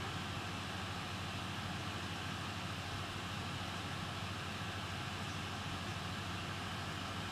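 Steady background hiss with a low hum underneath, unchanging throughout: room tone with no distinct event.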